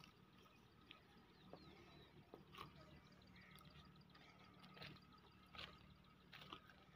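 Near silence: faint background hum with a few scattered soft clicks.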